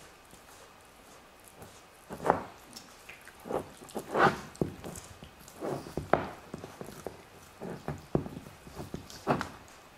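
Dobermann gnawing on a large bone: irregular chewing and crunching sounds with sharp clicks, starting about two seconds in.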